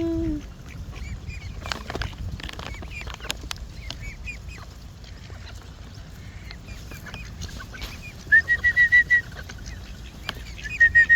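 Mixed flock of park birds and ducks calling, with a low honk right at the start, many short high chirps, and then two runs of quick, loud, repeated calls near the end.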